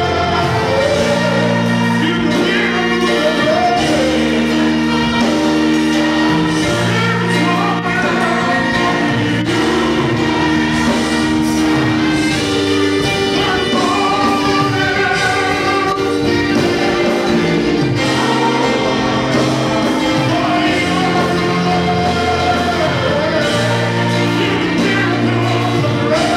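Church praise team of men and women singing a gospel song into microphones over electric keyboard accompaniment, with long held chords beneath the voices.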